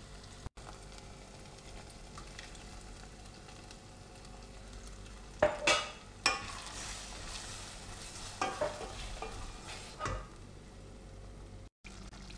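Minced meat frying in a stainless steel pan with a steady low sizzle. About five seconds in, tomato sauce goes in with a sudden loud burst of sizzling and clatter, then a wooden spoon stirs and scrapes it through the meat several times.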